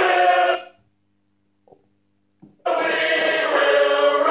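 Choir-style singing played through a small portable Bluetooth speaker: a held sung chord that stops about half a second in, about two seconds of near silence with a couple of faint ticks, then another held sung chord.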